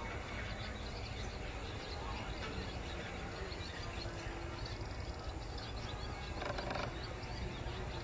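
A flock of perched swallows twittering: many short, high chirps overlapping continuously, over a steady low rumble. A short louder burst of another sound comes about six and a half seconds in.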